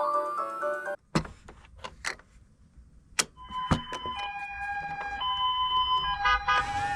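A few sharp clicks of a toy being handled, then a toy ambulance's electronic siren starts about halfway through, sounding a Japanese-style two-tone hi-lo "pee-po" pattern that alternates between a higher and a lower tone, each held for under a second.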